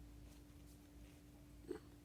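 Near silence: room tone with a faint steady hum and one brief soft sound near the end.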